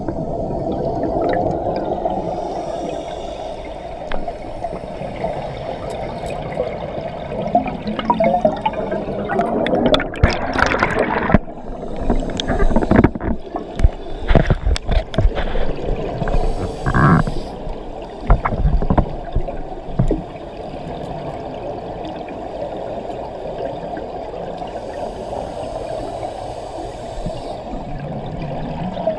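A scuba diver's regulator breathing recorded underwater: exhaled bubbles gurgling and rushing past, heavier and choppier in the middle, with fainter hissing stretches between breaths.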